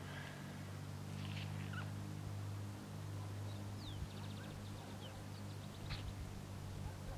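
Faint small-bird chirps and a short rapid trill, a few times, over a steady low hum.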